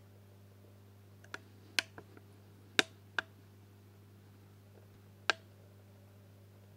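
A steady low electrical hum, with a string of sharp, dry clicks over it: a cluster of about six in the first few seconds and one more loud click later on.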